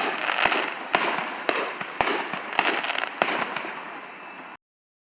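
Fireworks going off: a series of sharp bangs about every half second over continuous crackling. The sound cuts off suddenly about four and a half seconds in.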